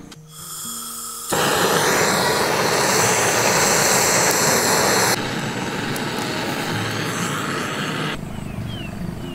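Butane blowtorch on a gas canister hissing steadily as its flame is held on lumps of charcoal to light them. It starts loudly about a second in and carries on a little quieter from about five seconds in.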